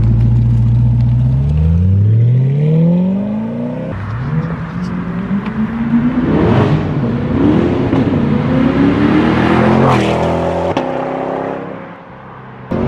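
C8 Corvette's 6.2-litre LT2 V8 through a new Magnaflow aftermarket exhaust, accelerating hard away with its pitch climbing steadily. Then, during a flyby, the revs rise and fall in several sweeps before the sound fades.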